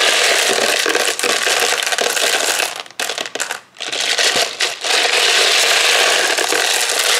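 Loose 9mm brass cartridges rattling and clinking against each other as a hand churns and spreads them in a polymer MTM ammo can. There is a brief break about three seconds in before the rattling resumes.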